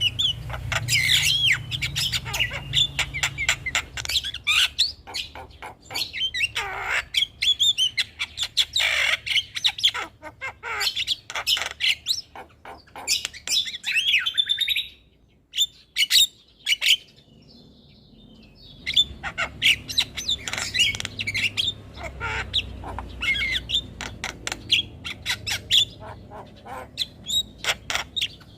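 Javan myna (jalak kebo) calls: rapid chattering clicks and short whistled and squawking notes in dense runs, with a lull of about three seconds midway.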